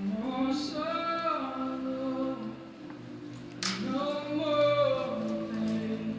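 A slow song: a voice sings two long phrases over sustained backing chords.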